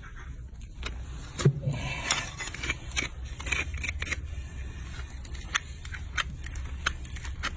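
Hoof-trimming tools scraping and clipping at a donkey's hoof: irregular sharp clicks and scrapes, with one louder knock about a second and a half in.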